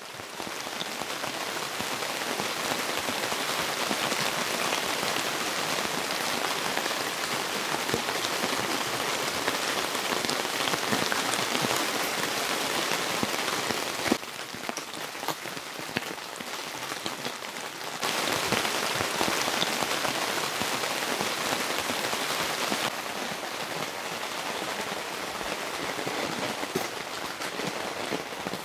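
Rain falling steadily, a dense even hiss of drops; it drops in level for a few seconds about halfway through, comes back up, and eases slightly again later.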